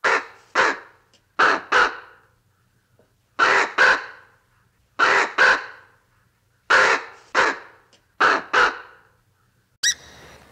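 Raven calling in pairs of harsh caws, six pairs in all, a second and a half or so between pairs.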